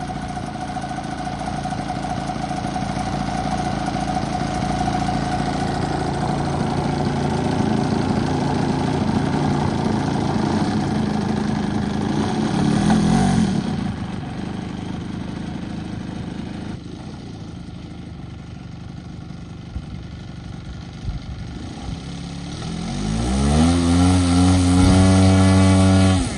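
A 3W-157 twin-cylinder gasoline model-aircraft engine running. It is throttled up, then dropped back abruptly to a quieter lower speed about halfway through. Near the end it is revved up with a rising pitch to a loud, steady high speed.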